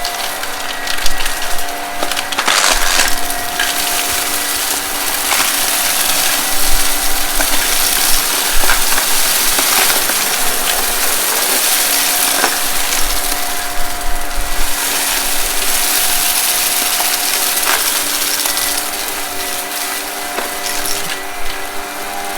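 Vacuum cleaner running with a steady motor whine while it sucks up crunchy debris that crackles and rattles through it, with scattered sharper clicks.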